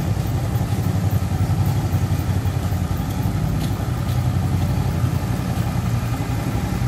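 Large cruiser motorcycle engine running at low, steady revs while the bike rolls slowly on its lowered landing-gear wheels, a deep, even pulse with no revving.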